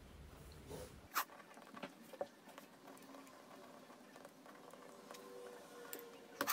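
Ballpoint pen writing on a sheet of paper on a tabletop, with soft paper rustles and a few sharp clicks and taps, the loudest of them near the end.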